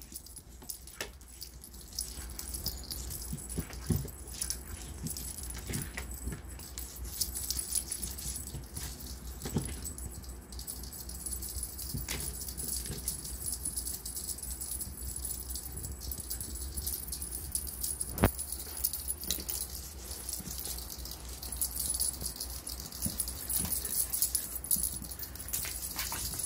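Kittens playing around a wicker drawer: light scrabbling and rattling, with jingling and scattered sharp knocks, one louder knock a little past the middle.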